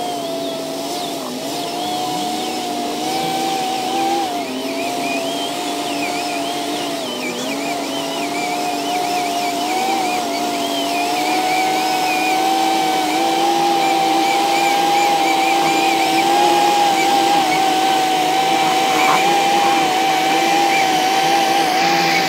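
Electric vehicle winch motor whining steadily under load as it reels in its cable, hauling a four-wheel drive up a slope; the pitch edges up slightly partway through and then holds.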